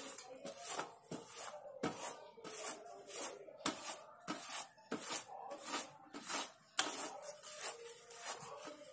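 Ripe palmyra palm fruit rubbed by hand against an upturned woven basket, pressing the pulp out through the weave: a rhythmic scraping of about two strokes a second.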